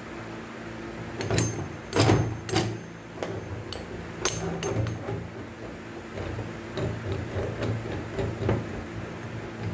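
Irregular metallic clanks and knocks of hand tools and parts on a vehicle's driveline, several ringing briefly, over a steady low hum.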